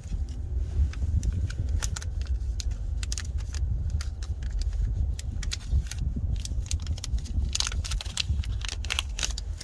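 Scattered light clicks and clinks of small metal parts and tools being handled at a car battery's terminals, over a steady low rumble.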